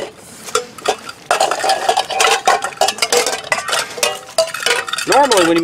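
Stainless steel bowls and metal pans being handled, clinking and clattering against each other, with some clinks left ringing briefly.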